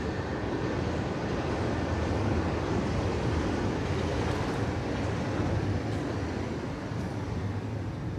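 Low, steady rumble of a large passing vehicle in city traffic. It builds over the first couple of seconds and slowly fades near the end.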